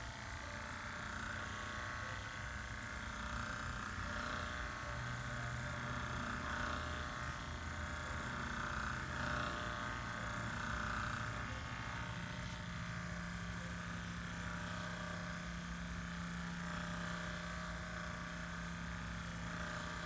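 Hyperice Hypervolt percussion massage gun running against the muscles along the spine. It gives a steady motor hum that steps up in pitch partway through.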